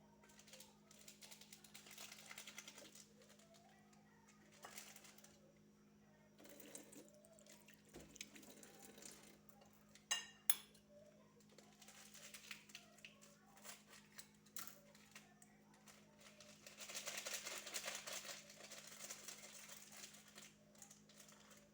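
Faint kitchen handling sounds: scattered clinks of dishes and utensils and light rustling, with two sharp clinks about ten seconds in, over a steady low hum.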